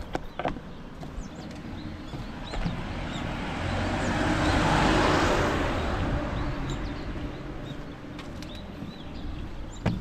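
A car passes on the road, its tyre and engine noise swelling to a peak about halfway through and then fading away. Birds chirp throughout.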